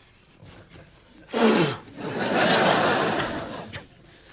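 Studio audience laughter, swelling about two seconds in and dying away over the next second and a half. Just before it comes a short, loud sound with a falling pitch.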